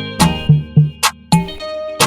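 Background music with a guitar over a steady drum beat, about four hits a second.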